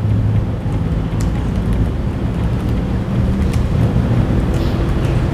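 Steady low rumble of background noise, with a few faint computer keyboard clicks as a name is typed.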